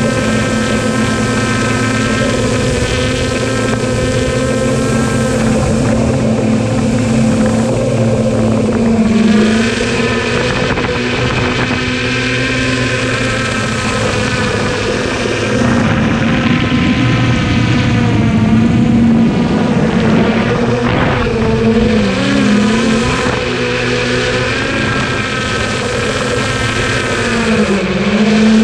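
Traxxas Aton quadcopter's motors and propellers whining steadily, picked up close by the GoPro riding on the drone, with a low rush of wind. The pitch wavers up and down as the drone adjusts its flight, about three-quarters of the way through and again near the end.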